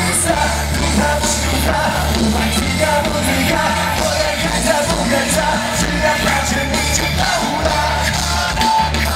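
Loud, steady music with a singing voice and a strong bass line.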